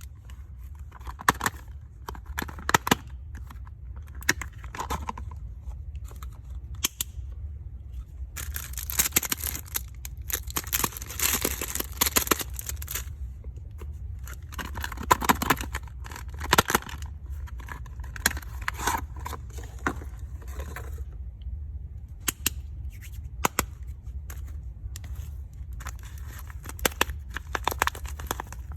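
Plastic soap packaging being unwrapped: crinkling and tearing in several stretches lasting a few seconds each, with sharp clicks and snaps scattered throughout, over a steady low hum.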